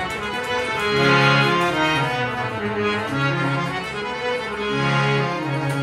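Harmonium playing a melodic introduction in sustained, held notes that step from pitch to pitch.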